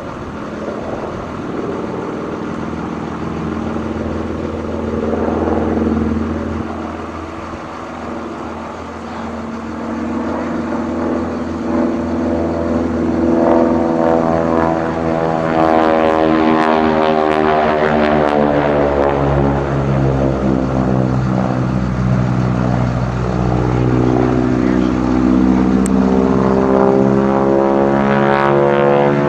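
Single-engine propeller warbird flying overhead in an aerobatic display. Its engine and propeller drone swell as it passes close about halfway through, the pitch sliding down as it goes by, then build again near the end.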